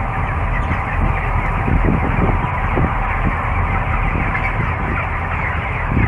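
A dense flock of three-week-old broiler chickens chirping and clucking all at once, over the steady low hum of the house's ventilation fans.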